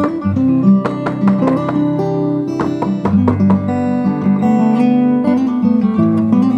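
Background music of strummed, plucked acoustic guitar with quick, frequent strokes.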